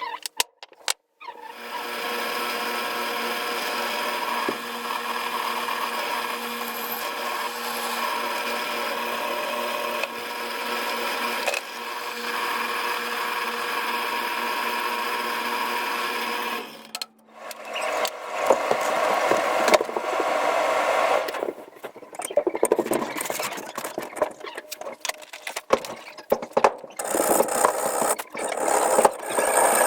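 A power tool's motor runs steadily for about fifteen seconds, then cuts off. Irregular stop-start scraping and grinding strokes follow, typical of metal or handle material being worked.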